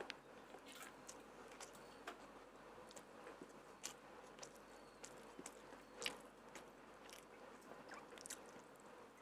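Close-miked eating sounds: quiet chewing with scattered soft clicks of the mouth, roughly one every second.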